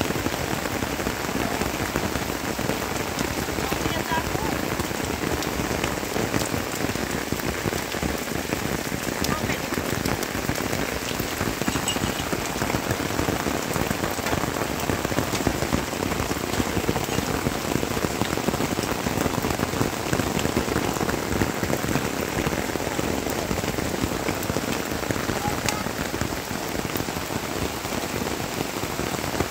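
Heavy rain falling steadily, with countless drops striking a plastic-sheet shelter and the rocky ground around it.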